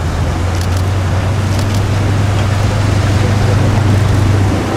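A motor vehicle running close by, a steady low rumble that swells and then eases off near the end, over the rush of the river.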